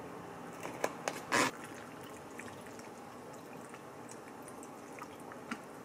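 Pineapple chunks dropped into a blender jar of fruit and greens, with a few light knocks and one brief louder noise about a second and a half in, then coconut water poured from a carton into the jar.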